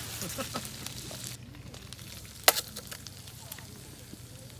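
Meat sizzling as it sears over a charcoal grill, with crackling and one sharp click about halfway through.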